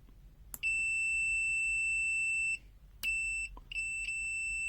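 FUYI 8233D multimeter's continuity buzzer beeping as the test lead tips touch: one steady high beep of about two seconds, then a short beep and a longer one that stutters briefly. A small click of the probe tips meeting comes at the start of each beep.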